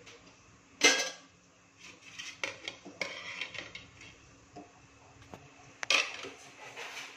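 Clinks and knocks on a stainless steel bowl as eggs are cracked into it: a sharp knock about a second in and another near the end, with a run of lighter clicks between.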